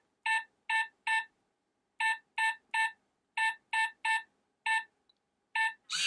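Hornbill smart deadbolt's touch keypad beeping once per key press as a passcode padded with extra digits is entered: about eleven short, identical beeps in uneven groups.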